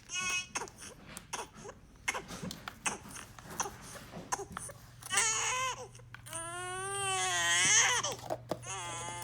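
Recorded newborn baby crying: short wails near the start and about five seconds in, then one long wail that rises and falls. Scattered light knocks fall between the cries, over a steady low hum.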